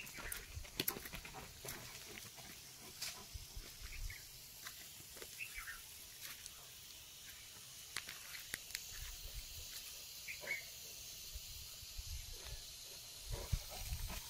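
Faint outdoor ambience: a light steady hiss with scattered small clicks and a few brief, high chirps.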